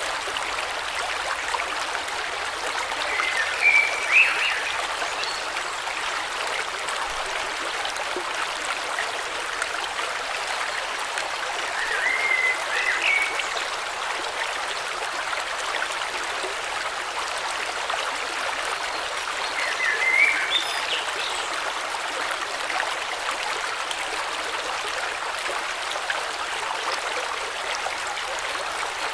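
River water flowing steadily, with a bird giving a short chirping call three times, roughly every eight seconds.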